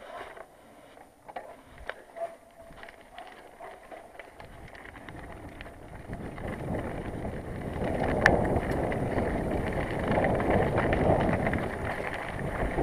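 Bicycle ridden along a rough dirt path: quiet with a few light ticks at first, then tyre rumble and rattle that build up over the second half as the bike picks up speed, with wind on the microphone and a single sharp knock about eight seconds in.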